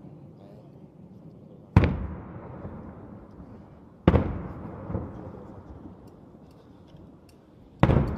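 Daytime aerial firework shells bursting: three loud bangs, about two seconds in, just after four seconds and near the end, each trailing off in a long rolling echo.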